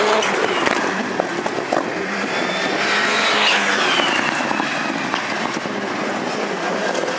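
Rallycross Supercars racing past on a loose dirt section, their engines running hard under throttle, with one engine's pitch sweeping up and down as a car passes about three seconds in.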